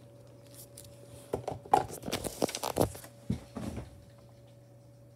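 Handling noise at a desk: a run of clicks, rustles and knocks lasting about two and a half seconds, starting just over a second in. A steady low hum runs underneath.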